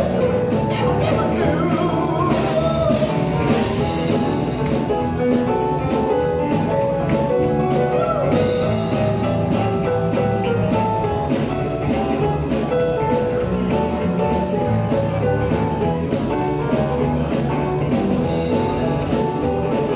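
Live blues-rock band playing an instrumental stretch: electric guitar, bass guitar, drum kit and keyboards, with a steady drum beat and no singing.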